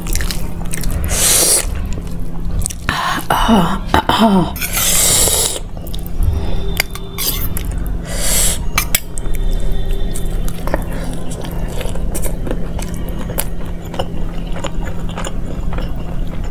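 Eating with the fingers from a steel plate: lachha paratha being torn and dipped in dal, then chewing with small wet clicks and smacks through the second half. A couple of short falling vocal sounds come about three to four seconds in, over a steady low hum.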